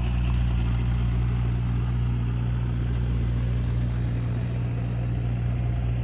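AutoGyro MTO Sport gyroplane's engine running steadily on the ground, a constant low drone with no change in pitch.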